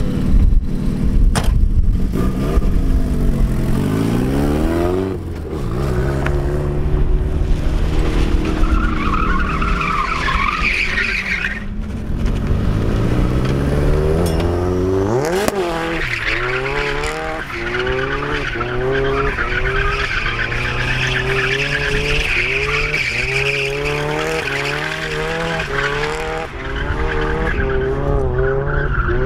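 Turbocharged Mazda Miata driven hard and drifting: the engine revs up and drops back over and over, with quick rises and dips about once a second later on. Tyre squeal comes and goes over it.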